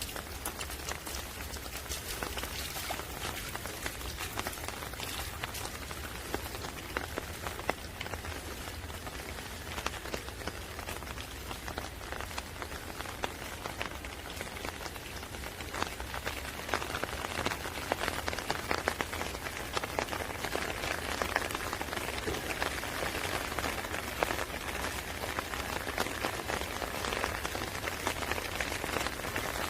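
Steady rain falling, with many separate drops ticking through the hiss; it grows heavier about halfway through.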